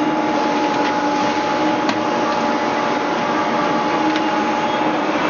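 Machinery running steadily: a constant hum with two steady tones, and a few light clicks about one, two and four seconds in.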